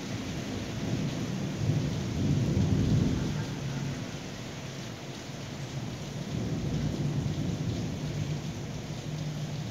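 Thunder rumbling over steady rain, swelling about two seconds in and again, more weakly, past the middle.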